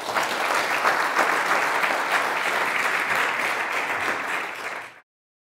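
Audience applauding, many people clapping steadily, cut off abruptly about five seconds in.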